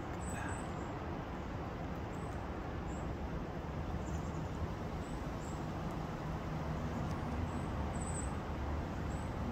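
Steady low rumble of road traffic, with a faint engine hum growing in the second half.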